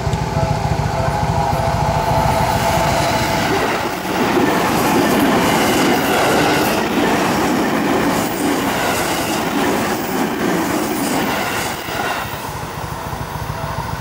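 Seibu Ikebukuro Line electric commuter train running through a level crossing, its wheels clacking over the rail joints. The crossing's warning bell rings steadily at first and is then drowned out as the train passes, from about four seconds in until about twelve seconds in.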